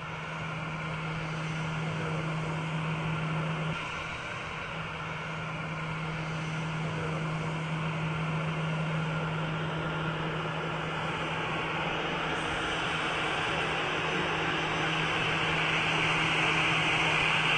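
Airbus A321's jet engines running at taxi power, a steady rushing whine with a low hum that grows gradually louder toward the end.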